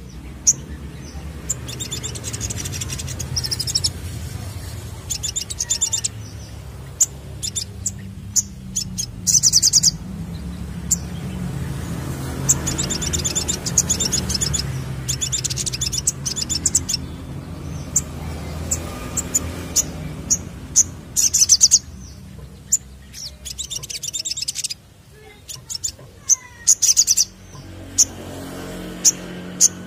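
Male olive-backed sunbird singing: sharp, high chirps and quick rapid trills repeated in short bursts. A low background rumble underneath drops away late on.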